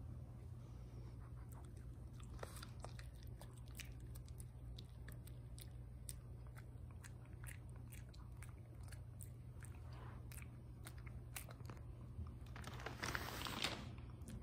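Shih Tzu chewing a piece of soft-baked dog treat that is a bit on the hard side: a run of small sharp crunches and mouth clicks. A louder stretch of chewing comes near the end.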